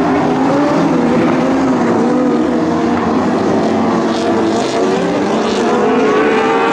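Engines of several Lightning Sprint cars racing on a dirt oval. They run loud and steady, and their pitches rise and fall as the cars accelerate and back off through the turns.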